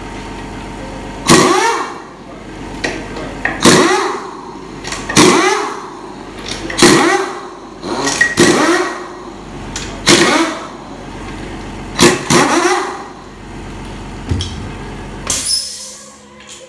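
Power wrench spinning in short bursts, about eight pulls of the trigger roughly every second and a half, each rising in pitch and falling back as it runs bolts out of the transmission case. A steady hum runs underneath and stops near the end.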